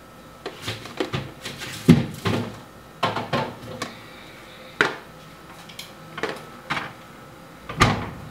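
Plastic food storage containers knocking and clattering as they are taken out of a refrigerator and stacked, with a loud thud of the fridge door being pushed shut near the end.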